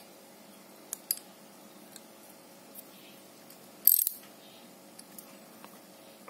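Socket-set ratchet handle clicking: a couple of single clicks about a second in, then a short fast run of ratchet clicks about four seconds in, the loudest sound, with a few faint metal ticks after.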